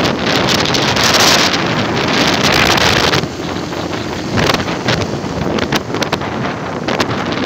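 Wind buffeting the microphone on a moving motorcycle, over the motorcycle's engine running. The wind rush drops noticeably about three seconds in.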